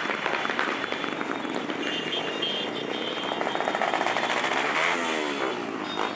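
A stream of small motorcycles and scooters riding past in a procession, many engines running at once, with one engine revving up and down about five seconds in. Crowd voices sound over the engines.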